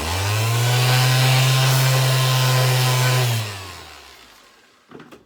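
Electric motor of a workshop machine switched on, running steadily at speed with a hum for about three seconds, then switched off and winding down with falling pitch.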